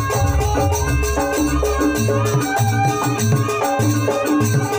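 Javanese jaranan music: gongs, drums and tuned metal percussion play a fast repeating pattern with a shaker-like jingle. A low drone drops out about halfway through, leaving a pulsing low beat.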